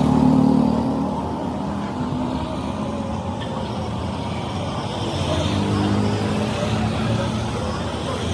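A motor vehicle engine running with a steady hum that is loudest at the start and swells again about five seconds in.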